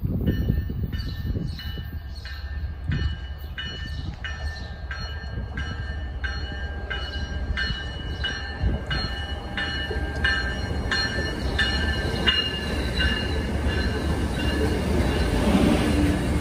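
A train's bell ringing steadily, about one and a half strikes a second, over the low rumble of a train approaching the station, the rumble growing louder near the end.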